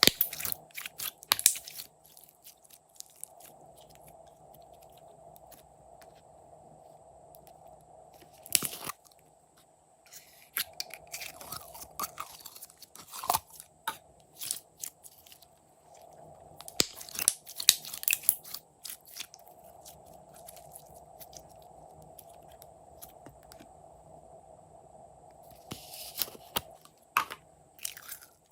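Glossy slime being squished and stretched by hand, giving spells of sticky crackling and popping clicks with quieter pauses between them, over a faint steady hum.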